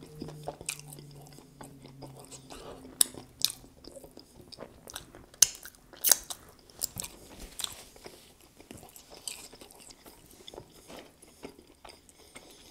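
Close-miked chewing of a sauce-covered chicken tender, with wet mouth clicks and lip smacks, a few of them sharp and loud. A low hummed "mmm" trails off over the first couple of seconds.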